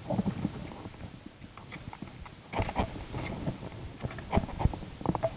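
Kayak paddling on a river: irregular splashes and knocks from the paddle strokes, coming in clusters about a second or two apart.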